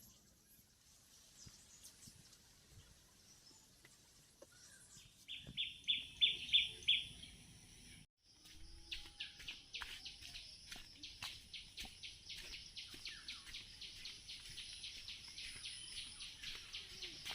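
High chirping calls of a small animal: a short, louder run of about half a dozen chirps, then, after a brief break near the middle, a steady chirp repeated about three to four times a second, over faint outdoor background.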